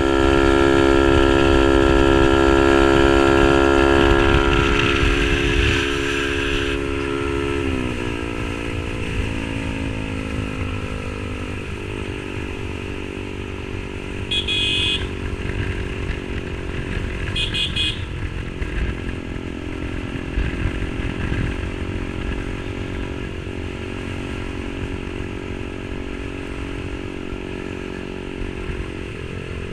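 Yamaha R15 V3's single-cylinder engine through an SC Project aftermarket exhaust, held at steady high revs for several seconds, then dropping in pitch and running on at lower, steady revs. Short horn toots twice, about halfway through.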